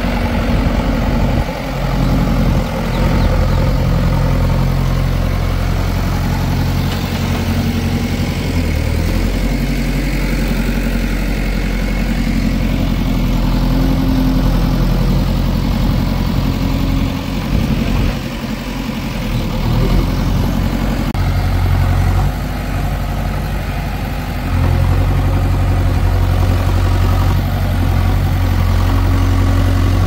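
Diesel engines of a backhoe loader and tractors running at low speed, with a steady low engine note. The note changes in pitch and strength a few times, around ten seconds in and again near twenty-five seconds, as the engine load shifts.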